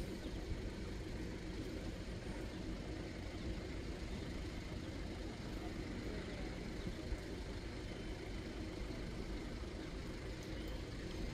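Steady low rumbling background noise with no distinct events, the kind of ambient hum heard at a roadside.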